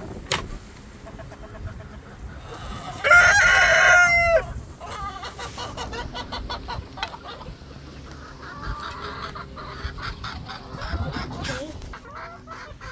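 A rooster crows once, loud and about a second and a half long, about three seconds in. Hens cluck around it.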